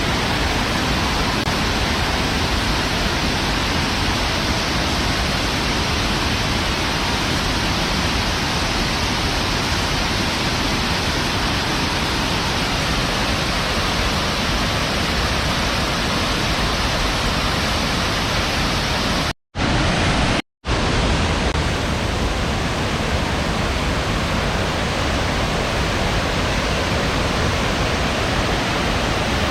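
Water of the Kuang Si waterfall rushing in a loud, steady roar, cut off twice for an instant about two-thirds of the way through.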